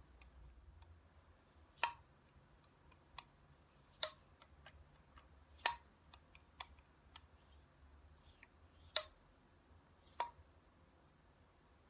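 Sharp metallic clicks and fainter ticks from the slide levers of a Glissando flute headjoint being worked by hand, about five louder clicks spaced irregularly. The uneven clicking goes with the slides sticking and moving unevenly when the headjoint is warm.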